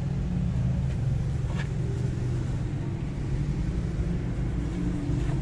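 A steady, low machine hum, with a faint click about one and a half seconds in.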